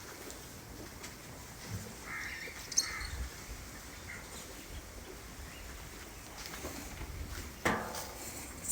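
Quiet farmyard background with a few faint chirps, then a short pitched animal call near the end.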